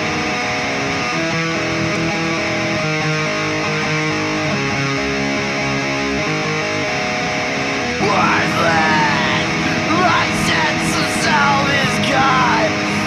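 Heavy rock track led by a distorted electric guitar riff. About eight seconds in the music gets louder and fast-bending, wavering high sounds come in over it.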